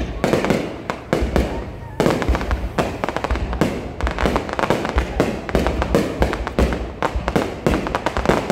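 Fireworks display going off: a dense, irregular run of many sharp bangs and crackles a second, with deep booms underneath.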